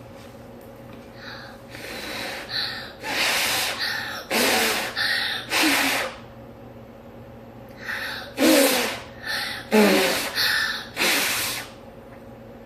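A child blowing short puffs of breath onto wet paint to dry it, in two runs of several puffs each, the second run starting about eight seconds in.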